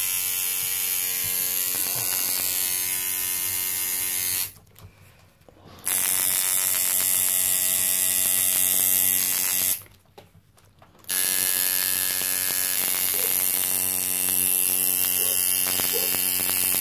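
Coil tattoo machine buzzing steadily as it drives the needle into skin. The buzz breaks off twice for about a second, around five and ten seconds in.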